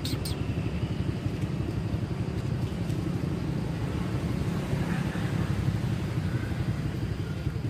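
Steady low rumbling background noise, unbroken throughout, with a few faint clicks right at the start.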